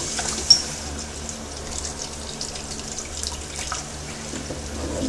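Kitchen tap running steadily into a plastic bowl in a stainless steel sink as the bowl is rinsed out by hand. A single sharp click about half a second in.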